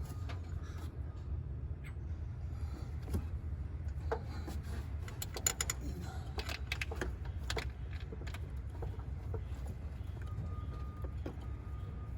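Scattered metallic clicks and clinks of tools and engine parts being handled while a throttle body is refitted, busiest in the middle, over a steady low rumble. A short beep repeats at an even pace near the end.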